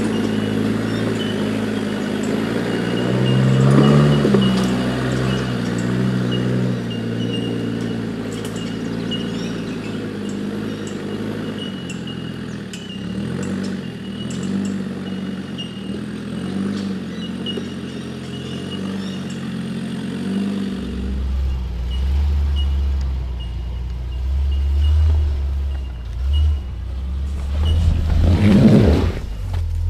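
Four-wheel drive's engine working under load on a steep rocky climb, revving up about three seconds in and then holding steady. From about two-thirds of the way through a deeper, heavier rumble sets in, and there is a brief sharp rev near the end.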